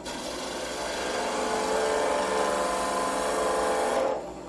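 Spindle gouge cutting a wooden bat blank spinning on a wood lathe: a steady shaving hiss with a running tone. The cut lets up briefly near the end.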